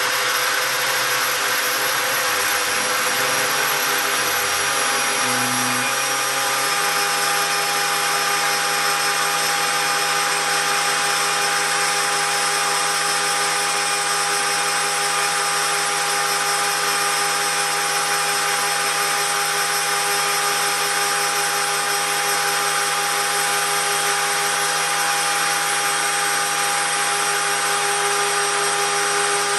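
Homemade CNC gantry milling machine engraving brass: the spindle runs steadily with a high whine over a loud hiss. Low motor tones shift in pitch for the first several seconds, then hold one steady pitch.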